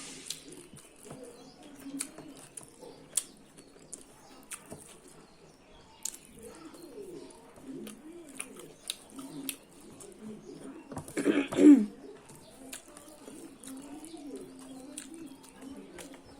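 Pigeons or doves cooing steadily, with scattered sharp clicks and smacks of a person eating. About eleven seconds in, a louder sound falls in pitch, the loudest moment.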